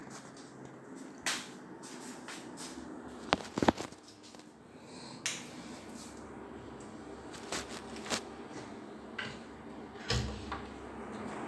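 Scattered clicks, taps and a low thump from a phone being handled and tapped, over faint room noise; the loudest is a pair of sharp knocks about three and a half seconds in.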